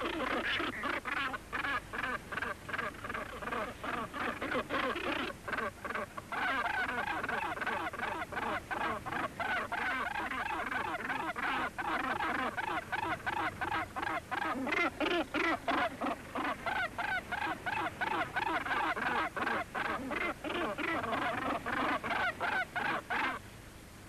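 A colony of northern gannets calling: many birds giving harsh, grating, rapidly pulsed calls over one another, the clamour that goes with pairs greeting and fencing bills. The calling cuts off abruptly near the end.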